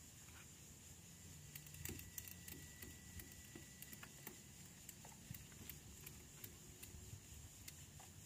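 Faint scattered clicks and rattles of a cargo strap and its hooks being handled, against near silence.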